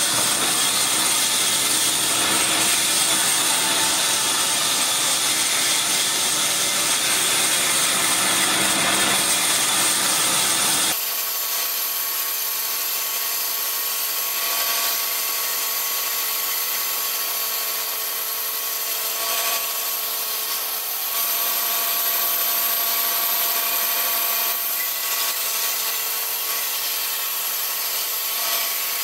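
Large band saw ripping lengthwise through a thick timber beam: a steady hiss of the blade in the wood over the machine's hum. About eleven seconds in, the low rumble cuts out abruptly and the cutting goes on lighter.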